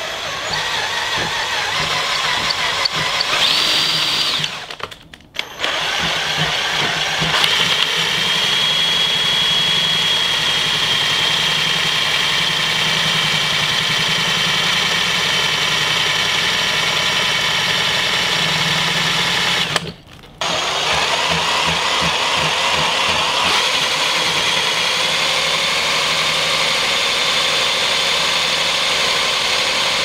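DIY ceiling-fan-motor alternator being spun at speed by a motor drive, running with a steady high whine while it charges a battery. The whine sags slowly as the load pulls it down. It stops briefly about five seconds in and again about twenty seconds in, then spins back up.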